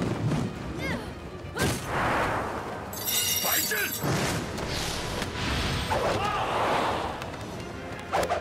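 Sword-fight sound effects: sudden clashes and swishing strokes, one with a metallic ring about three seconds in, and short fighters' shouts over dramatic background music.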